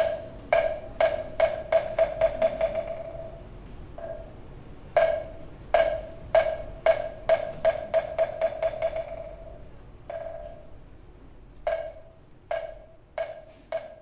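Moktak (Buddhist wooden fish) struck in three rolls: each begins with a few spaced, ringing knocks that speed up into a fast patter and grow softer, the second starting about five seconds in and the third near the end.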